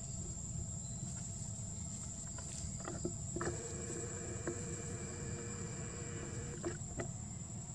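Steady high-pitched insect drone over a low background rumble. From about three seconds in, a fainter held tone with a few clicks joins for about three seconds.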